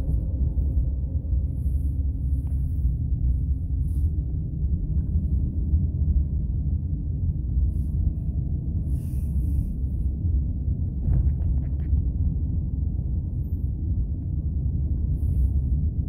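Steady low rumble of a car driving slowly on a snow-covered road, heard from inside the cabin.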